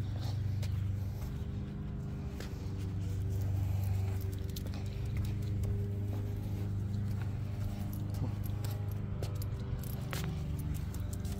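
Light metallic jingling from a dog's leash clip and harness hardware, a few scattered clicks, over a steady low hum.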